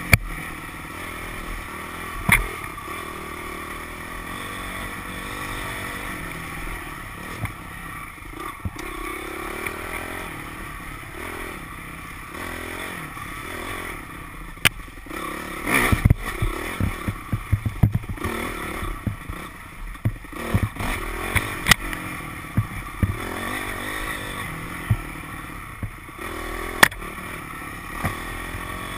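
Dirt bike engine running and revving up and down on a rough forest singletrack. Sharp knocks and rattles come from the bike over bumps, thickest about halfway through.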